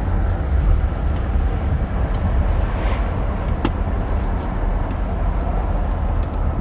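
Steady low road and engine rumble heard inside a moving car's cabin, with a single sharp click about three and a half seconds in.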